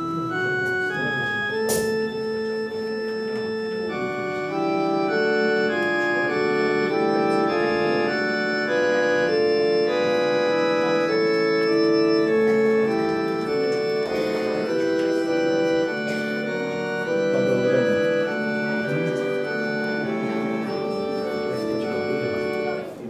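Organ music: a melody of held notes over sustained chords, the notes changing every second or so, stopping just before the end.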